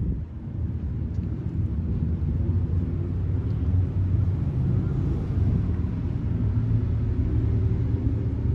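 A steady low rumble of running machinery, with a faint low hum in it.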